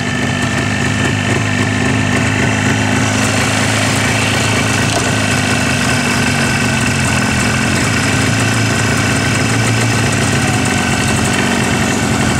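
Jawa motorcycle's two-stroke engine running steadily at idle.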